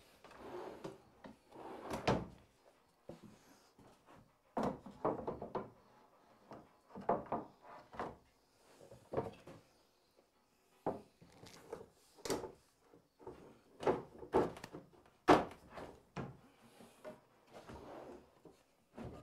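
Wooden drawers of a Harbor Freight Yukon workbench being pushed in and pulled out on their plastic slide rails: a series of irregular short slides and wooden knocks as they are fitted and tried.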